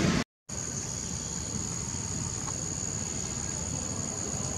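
After a brief dropout a moment in, insects drone steadily in one unbroken high-pitched tone.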